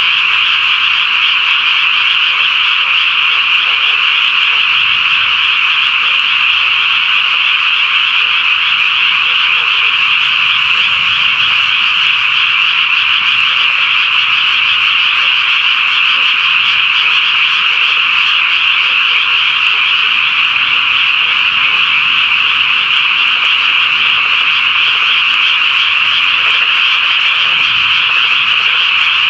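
A dense chorus of many frogs calling at once, a loud, steady, high-pitched wall of calls with no break.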